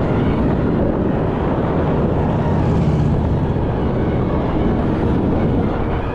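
Steady loud rumble of a vehicle in motion, with wind noise on the microphone.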